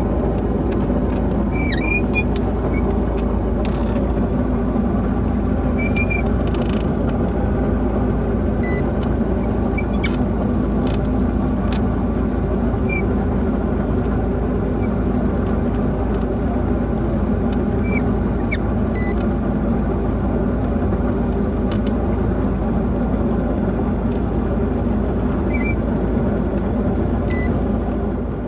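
Boat engine running steadily at a constant speed, with a few faint short high chirps now and then.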